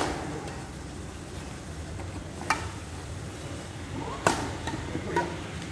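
Badminton rally: sharp pings of racket strings striking a shuttlecock, a few hits spaced one to two seconds apart.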